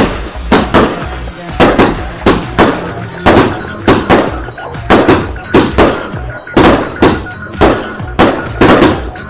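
Background music: an instrumental stretch of a song with a heavy, steady beat of about two strokes a second.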